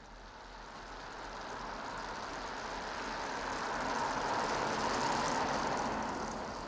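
A motor vehicle passing by, its engine and tyre noise swelling to a peak about four to five seconds in and then fading.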